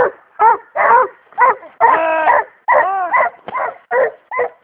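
Walker and Plott coonhounds barking: short pitched barks, about two a second, with one longer drawn-out bawl about two seconds in.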